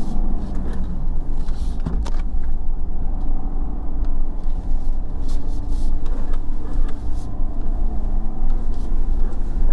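Ford F-250 Super Duty Tremor pickup heard from inside the cab, driving slowly down a dirt off-road trail: a steady low engine and drivetrain rumble, with a sharp knock from the truck going over a bump about two seconds in.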